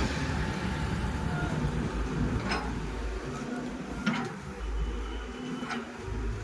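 Diesel engine of a CAT 312C excavator running steadily, with three sharp metallic clicks about a second and a half apart.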